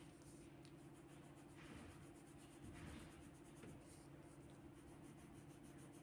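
Faint scratching of a coloured pencil shading on paper, in a few brief strokes, over a low steady hum.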